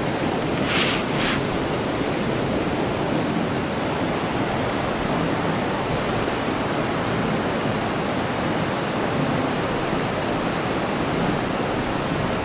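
Steady rush of fast-flowing river water, with two brief hissy sounds about a second in.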